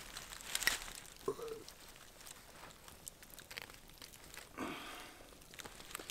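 Quiet rustling of cloth as socks are pulled off and handled, with scattered soft clicks.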